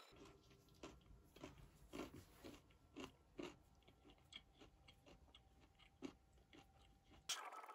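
Faint, close-up chewing with a dozen or so irregular crunches: a mouthful of charred broccoli being eaten. The chewing stops a little before the end.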